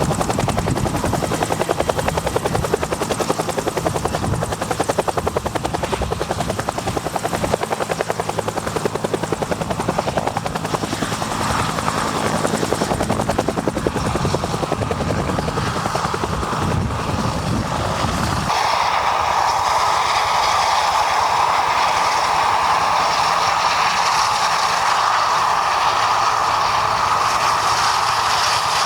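Agusta-Bell 205 (Bell UH-1 Huey) helicopter running, its main rotor beating in a fast steady rhythm under the engine noise. About two-thirds of the way in, the low rotor thumping stops abruptly, leaving a steady high turbine whine and rush.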